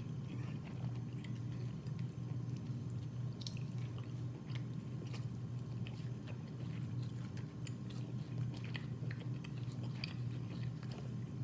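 Close-up chewing and mouth sounds of a person eating seafood-boil food, with many small irregular clicks and smacks. A steady low hum runs underneath.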